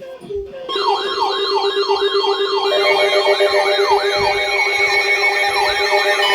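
Electronic siren-style alert sounding for a new severe thunderstorm warning. It starts just under a second in and is made of a steady low tone under a falling whoop that repeats about three times a second, with a fast high warble on top; more tones join partway through.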